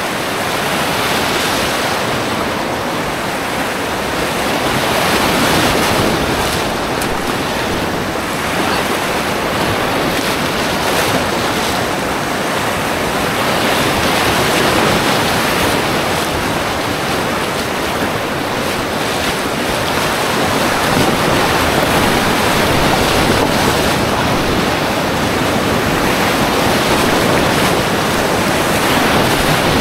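Whitewater rapids rushing around a packraft running them: a loud, steady rush of churning river water.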